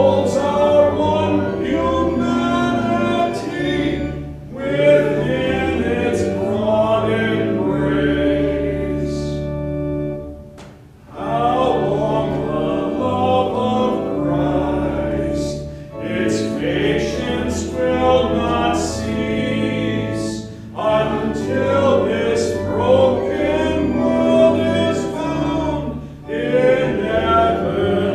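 Church congregation singing a hymn line by line to sustained organ accompaniment, with short breaks between phrases and a longer pause about ten seconds in.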